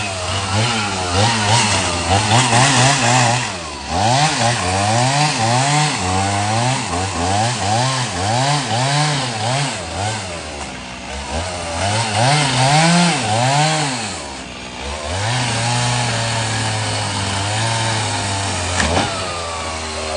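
Chainsaw cutting through a fallen tree's trunk, the engine revving up and dropping back again and again as it bites, then running more steadily near the end.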